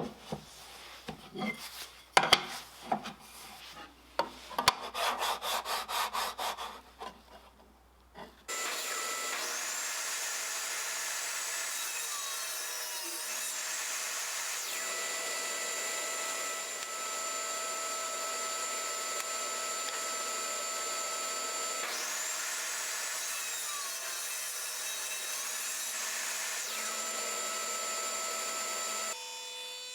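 Wood being handled and worked by hand, with scraping strokes and knocks, for the first several seconds. Then a power saw starts about eight seconds in and runs steadily with a high whine through wood, its pitch dipping briefly a few times under load, and stops just before the end.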